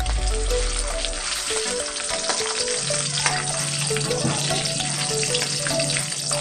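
Pork pieces frying in hot cooking oil in a steel wok: a steady sizzle, with the scrape and light clinks of a metal ladle turning them.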